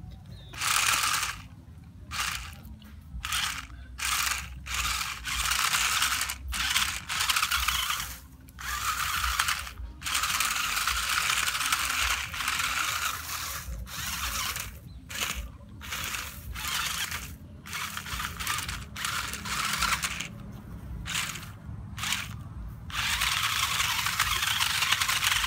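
Small electric motors and plastic gearboxes of a toy RC stunt car with mecanum-style roller wheels whirring in on-off bursts as the throttle is worked. There are many short bursts and two longer runs, one about ten seconds in and one near the end.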